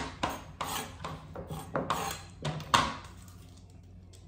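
Dishes and utensils clattering as they are handled on a kitchen counter: a quick irregular run of knocks and clinks for about three seconds, then quieter.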